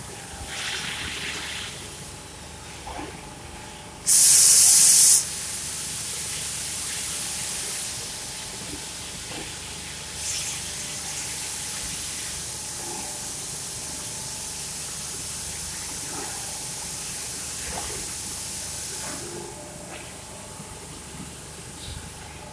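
Vacuum forming machine's air system hissing: a sharp, very loud blast of air lasting about a second, then a softer hiss for a few seconds, and after a short pause another steady hiss for about nine seconds.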